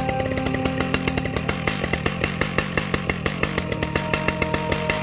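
Stihl MS881 two-stroke chainsaw running under load in a chainsaw mill, its ripping chain cutting a slab lengthwise through an ash log.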